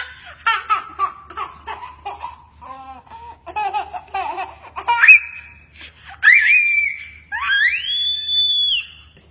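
A baby laughing in quick chopped giggles, then breaking into a few long, high-pitched squeals that rise and hold over the last few seconds.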